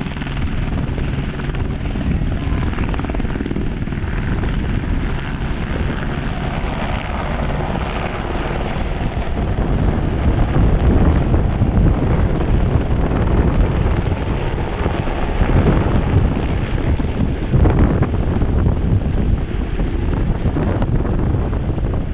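Rescue helicopter's rotor and turbine engine running as it lifts off and climbs away, getting louder about halfway through with rapid low rotor thumping as it passes overhead.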